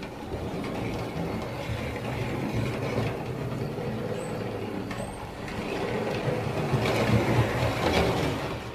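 Hornby Dublo tank engine's horseshoe-magnet motor running, with the bare chassis rattling along the model railway track. It grows louder in the last few seconds, then drops away at the very end.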